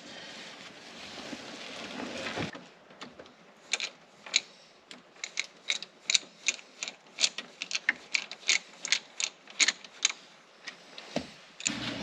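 Handling rustle at first, then a hand ratchet clicking in irregular runs, about two or three clicks a second, as it drives mounting screws.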